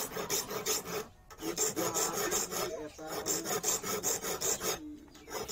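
Small hand file rasping across a workpiece in quick short strokes, about seven a second, with brief pauses about a second in and near the end.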